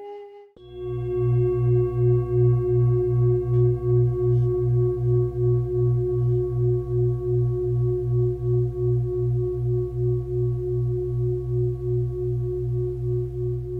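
Singing bowl struck once, then ringing on for many seconds with a wavering, pulsing hum and slowly fading.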